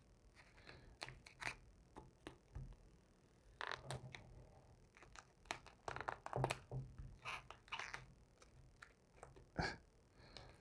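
Faint, irregular crinkling and rubbing of 3M 1080 vinyl wrap film as fingers press and fold its edge over a metal grill bar.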